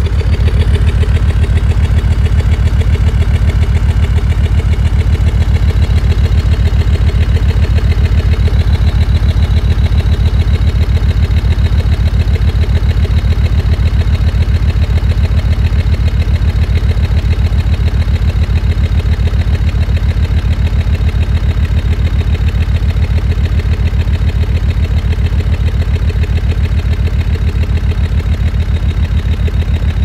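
Exhaust of a Land Rover Discovery 2 Td5 five-cylinder turbodiesel idling, heard at the tailpipe as a steady, loud low beat. The engine is below operating temperature, the state in which it shows a temporary misfire that the owner suspects is an ECU-controlled fuel cut or cold-engine protection.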